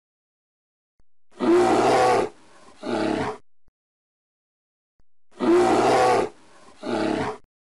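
Grizzly bear roaring: a long roar and then a shorter one, the same pair heard twice about four seconds apart.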